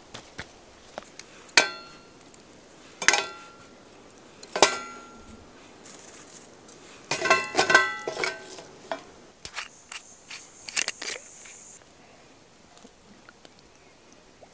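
Metal cookware and a small steel wood-burning camp stove being handled: three single ringing clanks a second and a half apart, then a short burst of clattering.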